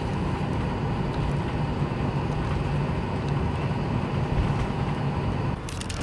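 Steady rumble and hiss of a jet airliner's engines, heard inside the cabin while the plane is on the tarmac. It changes abruptly shortly before the end.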